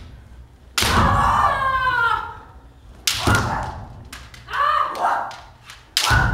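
Kendo sparring: three sharp impacts of bamboo shinai strikes and stamping bare feet on a wooden dojo floor, about a second in, about three seconds in and near the end. Long drawn-out kiai shouts follow the strikes.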